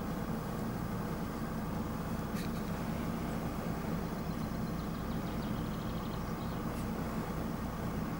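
Steady low hum of a vehicle engine idling, unchanging in level.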